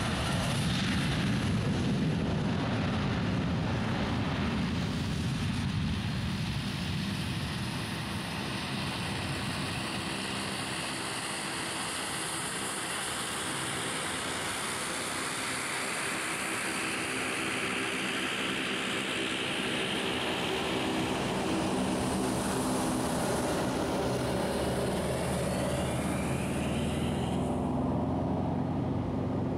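Engines of a Boeing 737-800 at takeoff power, a steady jet engine noise with whining tones as the airliner rolls down the wet runway and lifts off. Near the start, the low drone of a taxiing turboprop's propellers overlaps it.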